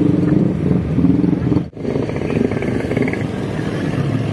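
Motor scooter engines running with road noise while riding along in a group of motorbikes; the sound cuts out for an instant about a second and a half in, then carries on.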